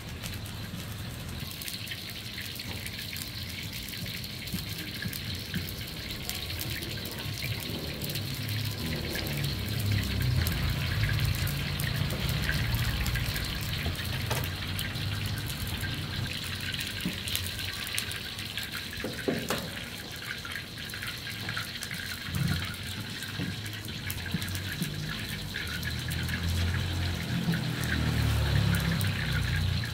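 Commercial gas wok burner running with a steady hiss and an uneven low rumble. A few light knocks come partway through.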